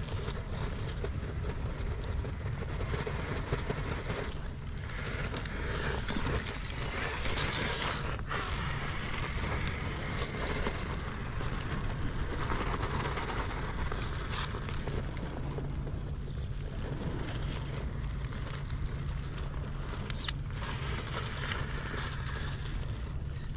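Small electric RC rock crawler's motor and gears whirring in spurts as it crawls over rocks, with a few sharp clicks. A steady low rumble sits underneath.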